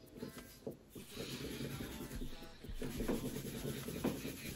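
Soft, irregular rustling of fingers shaking and rubbing through curly natural hair, starting about a second in.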